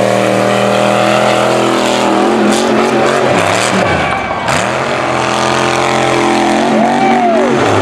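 Mega truck with a Cadillac Escalade body on oversized tires, its engine working hard as it drives over dirt mounds. The pitch holds steady, sags and climbs again, then rises and falls sharply near the end as the throttle is blipped.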